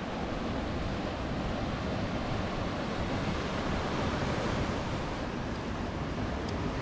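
Atlantic surf washing steadily onto a sandy beach and around rocks.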